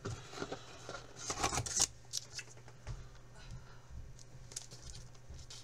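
Rustling and crinkling of hands rummaging in a cardboard box and handling packaged items, loudest about one to two seconds in, then fainter scattered ticks.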